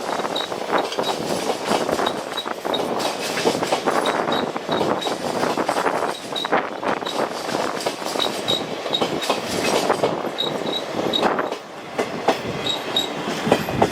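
Indian Railways passenger train coaches rolling past at speed, their wheels knocking over rail joints, with brief high squeaks recurring throughout.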